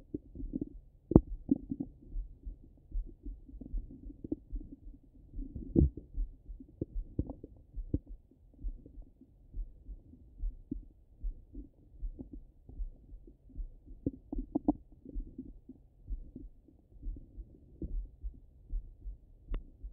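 Sounds of a belly heard through a Littmann stethoscope: a regular pulse from the heartbeat, somewhat faster than once a second, over low bowel gurgling, with a few sharper pops near 1 s, 6 s and 15 s in.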